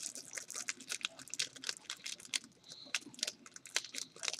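Small clear plastic wrapper crinkling in a child's fingers as it is picked open: a quick, irregular run of small crackles and clicks.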